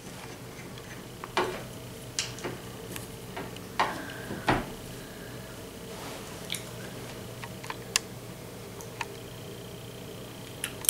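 Scattered light clicks and taps from a small glass Tabasco bottle and a metal spoon as the bottle is uncapped and shaken out onto the spoon a little at a time. A steady faint hum runs underneath.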